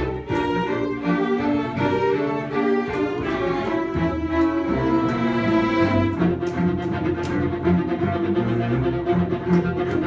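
Small string ensemble of violins, cello and double bass playing live with bowed, sustained notes over a moving bass line.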